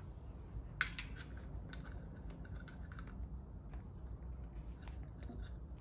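Hand tools and metal engine parts clinking during mechanic work: one sharp clink about a second in, then a few lighter clicks, over a steady low hum.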